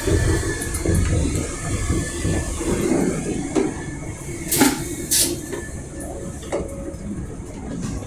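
Class 385 electric train running, heard from inside the carriage: a steady low rumble with a few sharp clicks and knocks, two of them just past halfway through.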